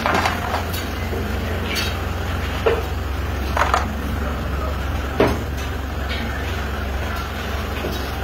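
Dough being rolled and cut with a knife on a large aluminium tray: a few scattered sharp taps and knocks on the metal over a steady low hum.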